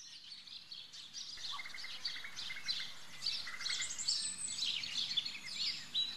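Birds chirping: a dense, steady run of short, high chirps and twitters, overlapping one another.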